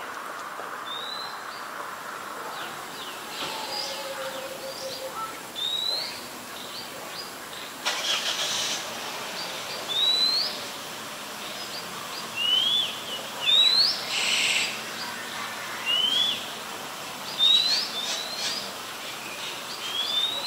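Small birds chirping: short, upward-sweeping chirps repeated every second or two over a low steady background hum. A brief rushing noise comes about eight seconds in and again about fourteen seconds in.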